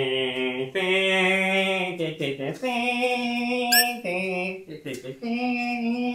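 A voice holding long, flat-pitched notes one after another, about five of them, each at a different pitch, like slow robotic chanting. A short rising electronic chirp sounds about four seconds in.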